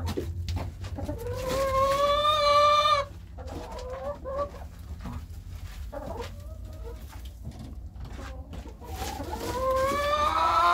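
Chickens calling: two long, drawn-out calls of about two seconds each, one near the start and one near the end, slightly rising in pitch, with softer clucking between them.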